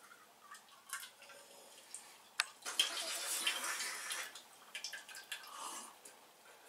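A person spitting and drooling into a paper cup, leaving wet mouth sounds: a few sharp clicks, a longer wet spatter about three seconds in, and smaller wet sounds near the end.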